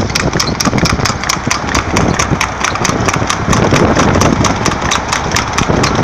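Car engine and road noise from a car driving alongside a trotting harness horse, with the horse's hooves striking the tarmac in a rapid, even clatter of about five beats a second.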